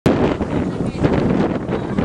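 Wind buffeting the microphone: a steady, low rushing noise.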